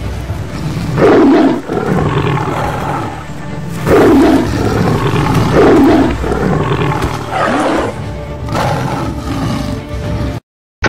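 Male lions fighting, giving four loud roars about one and a half to three seconds apart, over background music.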